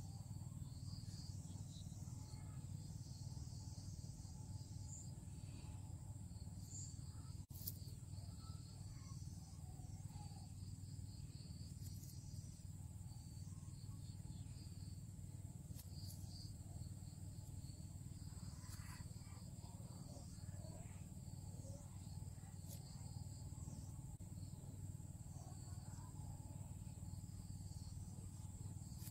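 Faint outdoor ambience of insects chirping in a high, pulsing trill over a steady low hum, with a single click about a quarter of the way through.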